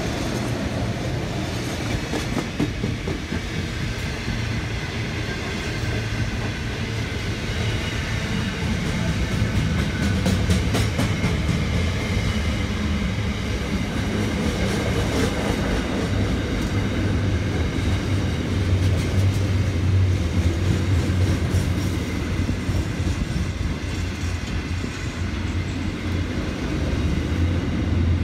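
Freight train's container wagons rolling past close by, a steady rumble of wheels on rail with a clickety-clack of wheels over rail joints here and there.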